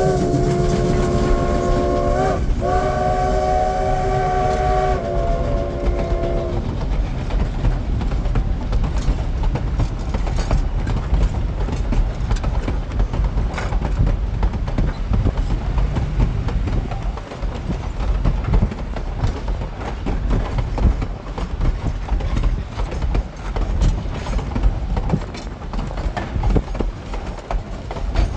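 Durango & Silverton narrow-gauge steam locomotive's chime whistle sounding a long blast, briefly broken about two seconds in and ending about six seconds in. After that the train rumbles past, its wheels clattering over the rail joints.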